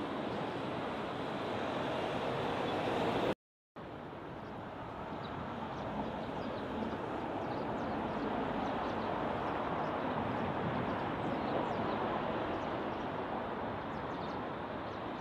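Street traffic noise: a steady rumble and hiss of passing road vehicles. It drops out briefly about three and a half seconds in, then resumes.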